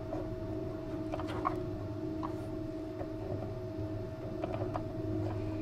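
Faint, scattered clicks and taps of fingers handling a metal sewing-machine bobbin on its winder spindle while threading it, over a steady low electrical hum.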